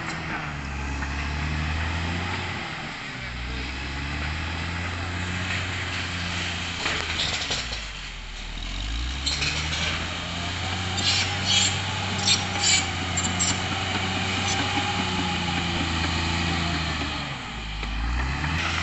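Caterpillar D6R XL bulldozer's diesel engine running at work, its pitch dipping and recovering three times, with a run of sharp metallic clanks about halfway through.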